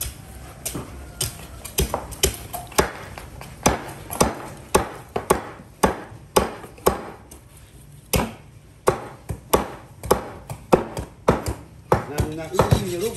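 Meat cleaver chopping meat on a thick round wooden chopping block: a steady run of sharp thwacks, about two a second.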